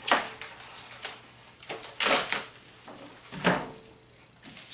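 Plastic wrap being pulled off the roll, torn and laid over chicken fillets: a few short crinkling, rustling bursts, the loudest about two seconds in, with a duller knock about three and a half seconds in.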